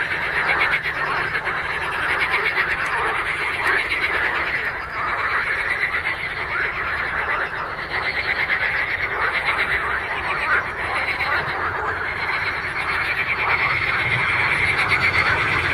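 Chorus of many frogs calling together, a continuous mass of rapid pulsed calls with no breaks.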